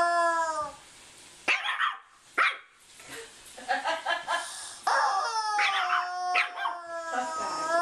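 A puppy yapping in short, sharp, high barks. A rubber chicken toy gives a long squawk that fades out just under a second in, and another squawk starts about five seconds in and runs to the end, sliding down and then up in pitch.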